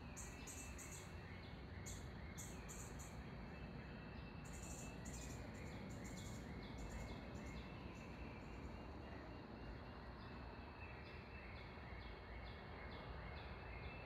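Several songbirds singing and chirping in a morning chorus, short slurred notes repeated many times, over a steady low background rumble.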